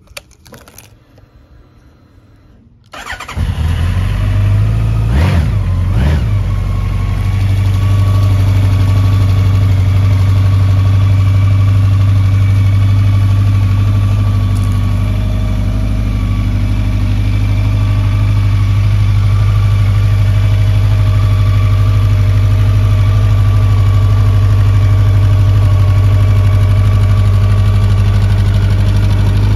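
A 2017 Honda CB1100RS's air-cooled inline-four engine starts about three seconds in. It is revved twice in quick succession, then idles steadily.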